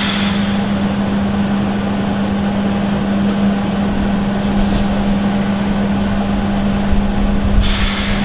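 A steady machine drone with a constant low hum, and a couple of faint clicks over it.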